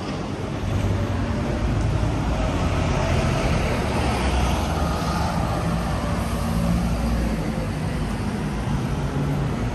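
Double-decker bus driving past close by on the road, its engine running with a steady low hum over general traffic noise.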